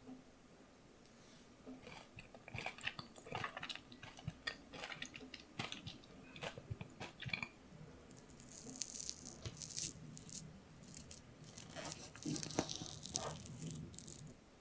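Close-miked chewing of soft cookie dough studded with chocolate chips and pretzel bits, heard as a run of wet clicks and crunches. Then a wooden spoon digs and scrapes through the dough in a ceramic ramekin in two bursts of scratchy noise, the second near the end.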